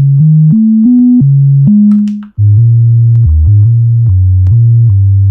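Monophonic synthesizer bass from the P_4L II Eurorack-style plugin's bass model, played dry with the reverb off: a run of sustained single notes stepping up and down in pitch, about three a second. About two seconds in it cuts out briefly and comes back in a lower register.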